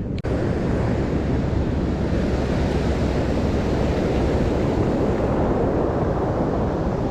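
Steady rushing of wind on the microphone mixed with ocean surf washing on the beach.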